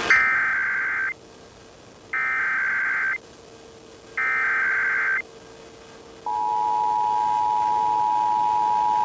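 Emergency Alert System tones on an FM radio broadcast: three bursts of SAME header data, each about a second long with short gaps between, then about six seconds in the steady two-tone EAS attention signal (853 and 960 Hz) begins and holds.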